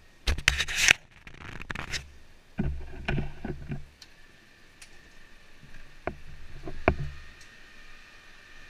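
Close handling noise on a helmet-mounted camera: loud scraping and rubbing in the first second, then clusters of sharp knocks with a low hum under them, around three seconds in and again around six to seven seconds in.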